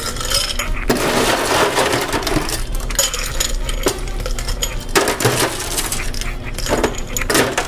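Ice cubes scooped from a plastic tub into a glass, clattering and clinking repeatedly.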